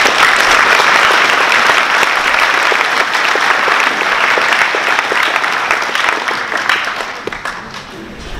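Audience applauding: a dense patter of many hands clapping that swells at once and dies away over the last couple of seconds.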